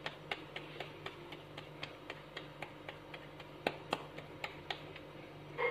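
Faint, even ticking, about four ticks a second, over a low steady hum.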